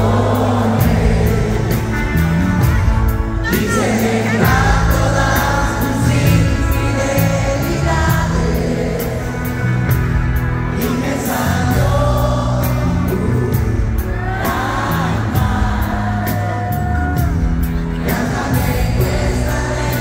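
Live concert music: a band playing over a steady beat, with a lead voice singing.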